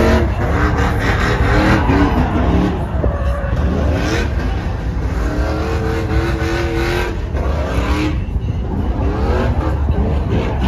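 Vehicle engine revving repeatedly, its pitch climbing and falling several times over a heavy low rumble.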